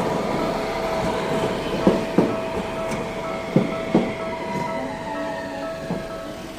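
A two-car Tokyu Setagaya Line 300-series tram passing over a level crossing, its wheels clacking over the rail joints in two quick pairs, with a faint whine falling in pitch. The crossing's warning signal sounds throughout as a steady tone.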